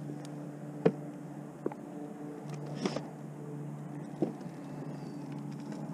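Electric trolling motor humming steadily, with a few sharp knocks on the boat, the loudest about a second in.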